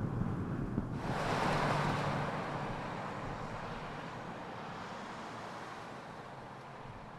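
Vehicle noise: a low rumble, then a rushing noise that starts suddenly about a second in and slowly fades.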